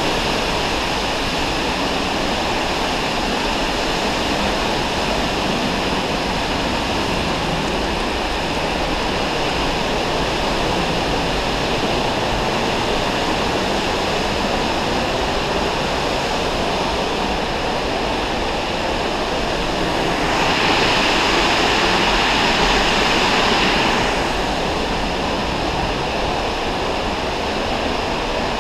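Steady rush of a nearby waterfall, which swells louder and brighter for a few seconds about two-thirds of the way through.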